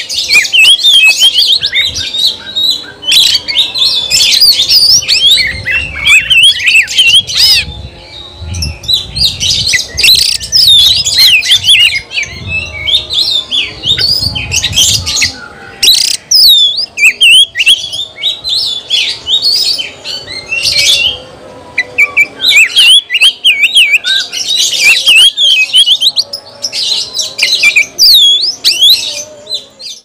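Oriental magpie-robin singing loudly and almost without pause: a rapid, varied stream of whistles, trills and harsh chattering notes, broken by short gaps. A low rumble sits under the song in the middle stretch.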